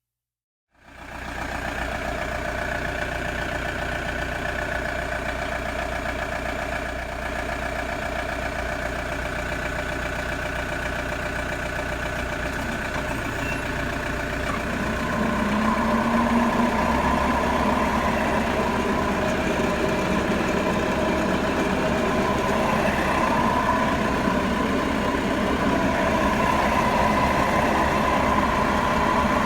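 Toyota Hiace van driving with a steady droning 'goo' noise, likened to a plane flying overhead, which grows louder about halfway through. The owner puts the noise down to worn bearings in the rear differential.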